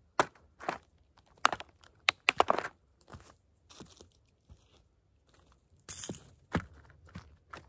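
Toy Grave Digger monster truck crunching and cracking as it is crushed: several sharp cracks over the first three seconds, a short rustle about six seconds in, then another crack.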